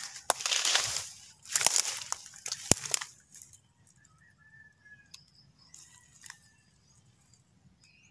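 Footsteps and brushing through dry grass, twigs and leaf litter: crunching, crackling rustles with sharp snaps in the first three seconds, then it goes quiet with a few faint high chirps.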